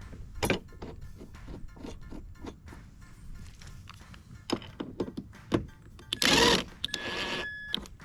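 Small metal clicks and clinks of a washer and Torx bolt being fitted onto a steel bracket, then a brief rattling burst and a short whir from the tool driving the bolt in.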